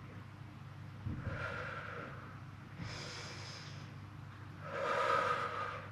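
A woman breathing audibly while exercising: three breaths, the second higher and hissier, the last, about five seconds in, the loudest exhale.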